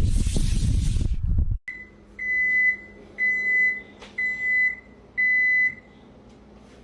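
A loud low rumbling noise that cuts off suddenly, then an electronic appliance beeper sounding four even high beeps about a second apart.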